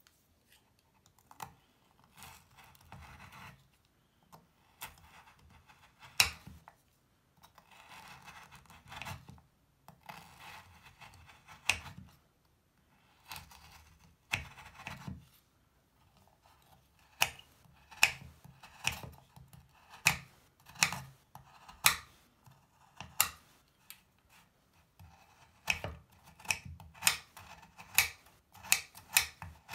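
A chef's knife slicing and chopping through a crumbly Lush bubble bar. The first half is scraping, crunching cuts. In the second half the blade knocks sharply on the cutting board about once a second, speeding up near the end.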